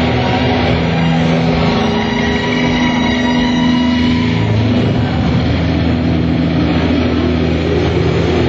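Live rock band playing loudly, with heavily distorted electric guitar holding long sustained notes over a thick, dense band sound.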